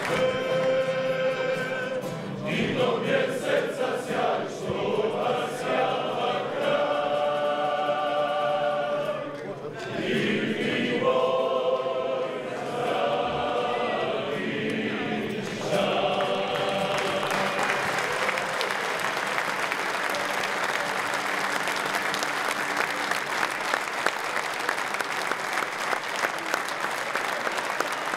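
A group of men singing together in a reverberant hall. The singing ends about 16 seconds in, and the audience breaks into sustained applause.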